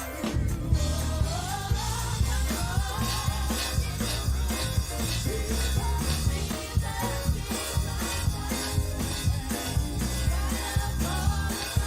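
Church praise music: a band with drum kit and bass playing a steady upbeat groove, with singing over it.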